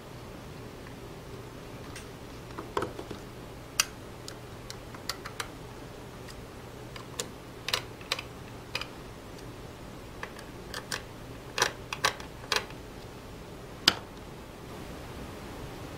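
Irregular small clicks and taps as copper pillar screws and a screwdriver are worked into a dome camera's mounting plate by hand, a dozen or more scattered sharp ticks over a steady low hum.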